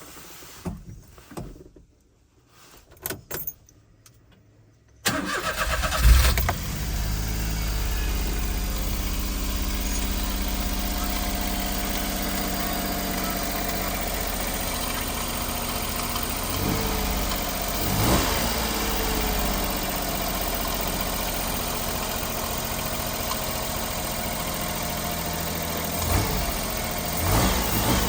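Kei truck engine starting about five seconds in, with a short flare, then idling steadily. A few short knocks sound over the idle in the second half.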